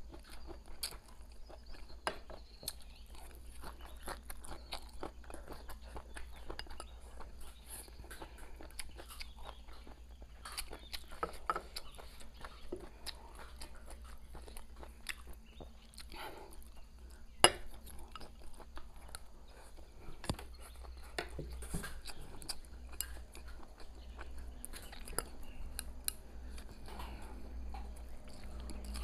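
Close-miked chewing and crunching of stir-fried green chillies with rice, with short clicks of chopsticks against a porcelain bowl; one sharp, louder click a little past the middle.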